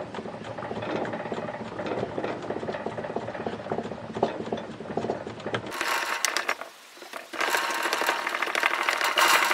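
Wooden rammer stick pounding clay-bonded moulding sand into a wooden flask: rapid, repeated tamping strokes as the sand is packed around the pattern. About halfway through the strokes turn brighter and sharper.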